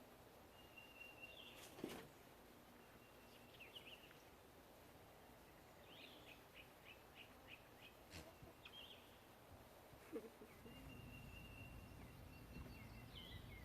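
Faint bird calls: a few held high whistles ending in a flick, and a quick run of chirps about six seconds in, with two soft clicks.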